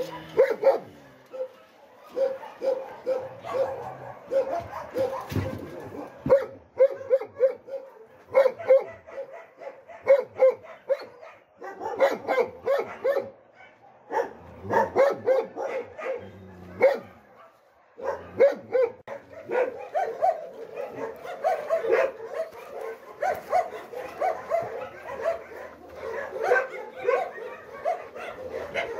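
Many dogs barking and yipping over and over, several at once, in quick runs with a few brief lulls.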